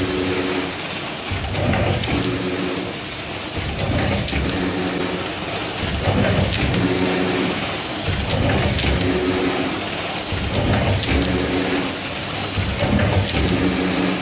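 Multi-lane stick packaging machine running with its grouping conveyor, working in a steady cycle that repeats about every two seconds: a short sharp hiss or clack followed by a held hum each time.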